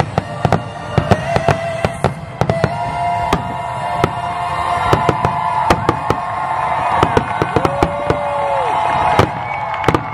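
Aerial fireworks shells bursting in rapid succession, several sharp bangs a second.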